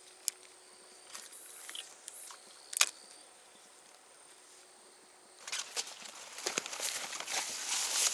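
Footsteps crunching and rustling through bankside ground, starting about five and a half seconds in, after a few faint clicks and one sharp click just before three seconds.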